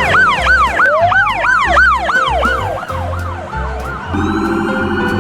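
Electronic police-style siren yelping in quick rise-and-fall whoops, about three a second, fading out around three and a half seconds in. A second, steadier electronic siren tone takes over just after four seconds.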